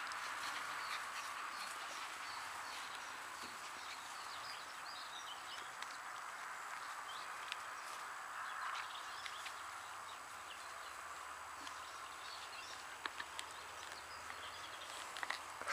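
Samoyed puppies chewing and tugging at a leather boot, giving scattered small clicks and scuffs that come more often near the end, over a steady outdoor hiss.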